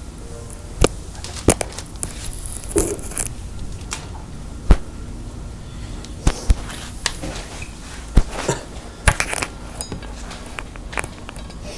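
Irregular sharp clicks and knocks of small objects being handled and set down on a table, about a dozen of them, over a steady low hum.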